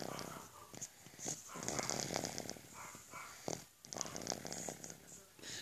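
A six-month-old dog snoring in its sleep: several rattling snores in a row with short pauses between breaths.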